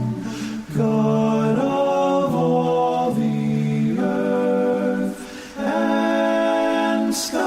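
Unaccompanied voices singing in harmony: long held chords that shift every second or two, with two short breaks between phrases, about a second in and past the middle.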